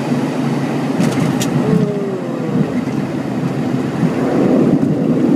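Steady rumble of an airliner's engines and airflow heard from the cockpit during the landing flare and touchdown. A few sharp clicks come about a second in, a short falling tone follows, and the rumble grows a little louder near the end.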